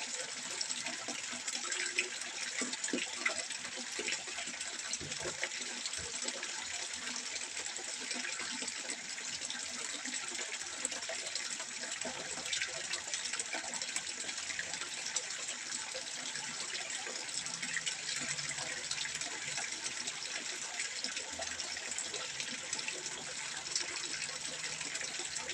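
Water trickling steadily into a fish pond: a continuous splashing hiss with many small droplet ticks.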